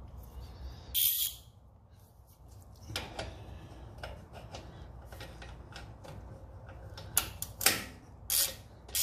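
Scattered metallic clicks and taps from a socket ratchet on a long extension as the mower's oil drain plug is turned back in and snugged. The loudest clicks come about a second in and again near the end.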